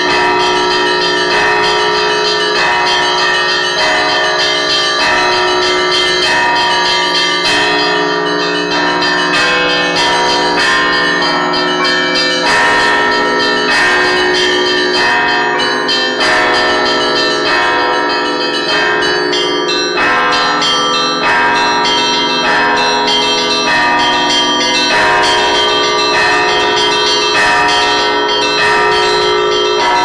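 Russian Orthodox church bells rung by hand from the belfry, their clappers pulled by ropes: small bells struck in quick, dense patterns over lower bell tones that ring on steadily.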